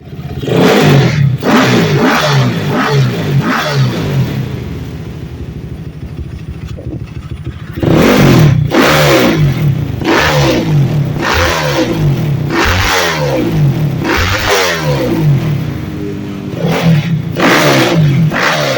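Honda Supra X 125's single-cylinder four-stroke engine, tuned with Daytona performance parts, revved in quick repeated throttle blips. It settles back to a quieter idle about four seconds in, then is revved hard again from about eight seconds, rising and falling about once a second.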